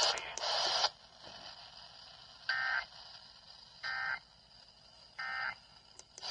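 Three short bursts of Emergency Alert System (SAME) digital data tones, each about a third of a second long and about 1.3 s apart. These are the end-of-message bursts that close a broadcast EAS warning.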